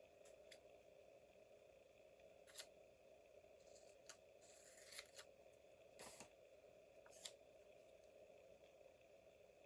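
Faint paper-crafting sounds: a scattering of short snips and clicks, with a brief rustle of paper about five seconds in, over a steady low hum.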